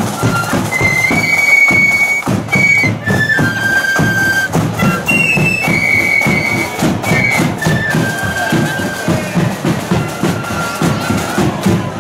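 Marching flute band playing a tune: many side-blown flutes in unison carry a melody of held high notes, over a steady beat of drums.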